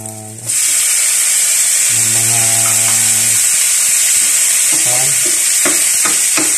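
Tomato wedges going into hot oil with sautéing onion and garlic in a nonstick frying pan, setting off a loud, steady sizzle that starts suddenly about half a second in. A metal ladle stirs and clicks against the pan near the end.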